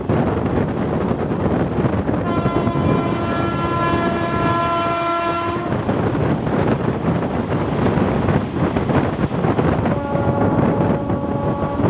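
WAG-9HC electric locomotive horn sounds a long blast of about three and a half seconds, then a shorter, higher-pitched blast near the end. Beneath it runs the steady rumble and clatter of a moving ICF passenger coach.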